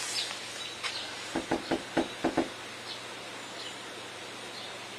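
Knocking on an apartment door: two quick sets of three sharp knocks about a second and a half in, after a faint first tap.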